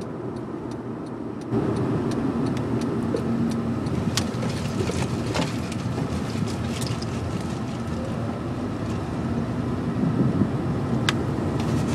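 Car driving, heard from inside the cabin: steady engine and road noise, stepping up in level about a second and a half in, with a few faint scattered clicks.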